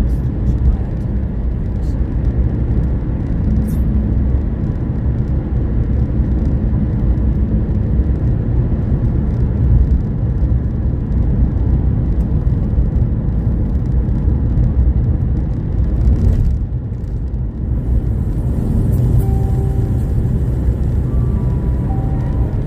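Car cabin road noise while driving at about 45 mph: a steady low rumble of tyres and engine. A few faint steady tones come in near the end.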